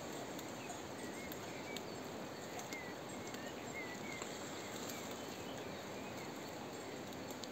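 Sheep browsing on shrub leaves over a steady hiss, with scattered small clicks of leaves being torn and hooves on rock. Several faint bird chirps come in the first half.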